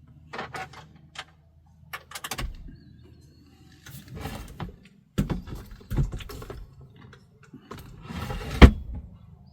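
Dishes and utensils being handled and put away: scattered clinks, knocks and short rattles, with a sharp thump near the end as the loudest sound.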